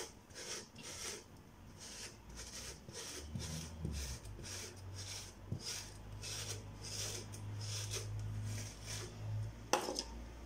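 Soft rubbing strokes over tightly coiled type 4 hair as it is smoothed down into a high puff, about two strokes a second. A sharp click sounds near the end.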